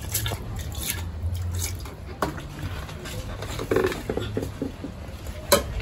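Wet kitchen sounds of liquid in cooking: squelching and dripping, with scattered short knocks. A sharp knock near the end is the loudest.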